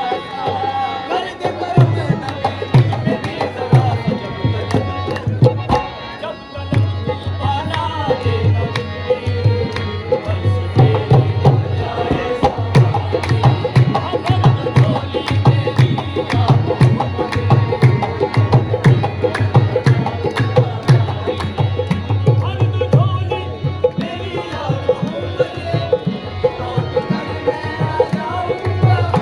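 Live qawwali music carried by steady tabla drumming under a melodic line. The drumming drops out for a moment about six seconds in, then resumes.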